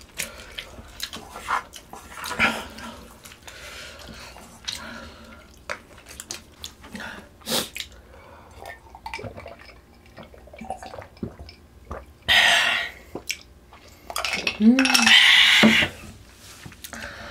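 Metal spoons and chopsticks clicking and scraping against a pot and bowls while eating, in scattered small knocks. Two louder, noisy stretches come near the end, around twelve and fifteen seconds in, the second with a brief vocal sound.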